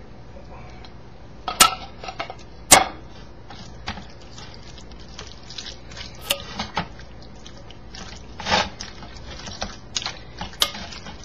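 Sharp clinks and knocks of a spoon and can against a glass mixing bowl as thick condensed cream of mushroom soup is emptied out and stirred into green beans. The two loudest clinks come a couple of seconds in, with lighter ones scattered after.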